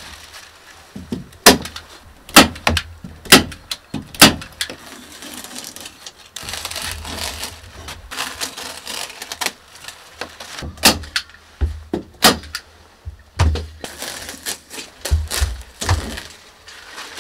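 Hand staple gun snapping staples through plastic film into the wooden wall framing, sharp single shots about a second apart in two runs. Crinkling of the plastic sheet being handled in between.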